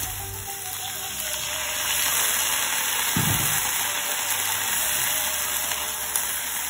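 Chopped green beans sizzling in coconut oil in a kadai as a spoon stirs them, with a steady hiss. A brief low sound comes about three seconds in.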